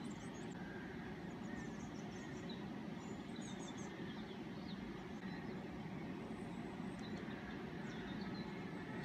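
Steady rush of river water pouring over a weir, with small birds chirping faintly at intervals.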